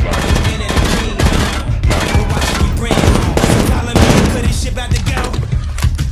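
Rapid, continuous gunfire, shot after shot in quick succession, over a loud music track.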